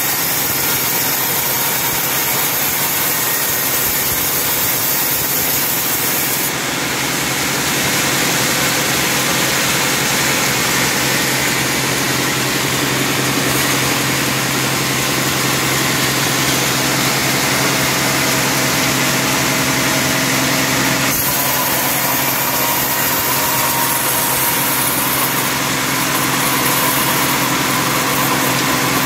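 Horizontal band sawmill running with a steady mechanical drone and low hum, its teak log held on the carriage.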